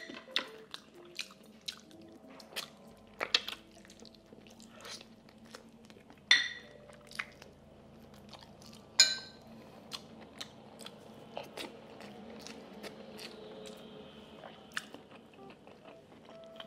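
Close-miked chewing and mouth smacks from eating soft, braised pork trotters by hand. Scattered sharp smacks, the loudest about every three seconds in the first half. Faint background music runs underneath.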